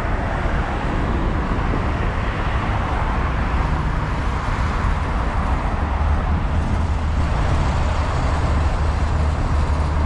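Steady rush-hour road traffic: a continuous rumble and hiss of cars and buses passing on a busy multi-lane road.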